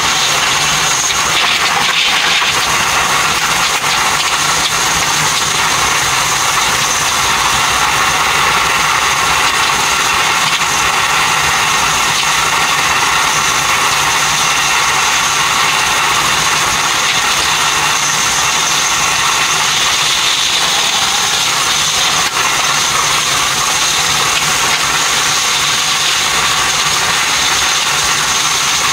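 Steady rushing running noise of an electric train at speed, heard from inside the driving cab. The sound is sped up fourfold along with the picture, and a faint high whine runs through it.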